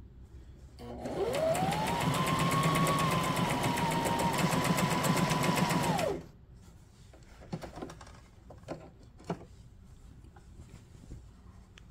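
Brother SM2700 sewing machine stitching a decorative stitch on cotton fabric. The motor whine rises as it starts about a second in, then runs steadily with a rapid needle rhythm for about five seconds and stops. A few faint clicks follow.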